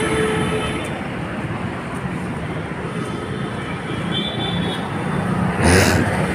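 City road traffic heard from a moving vehicle: a steady rumble of engines and tyres. A high-pitched squeal fades out about a second in, and a short loud rush of noise comes just before the end.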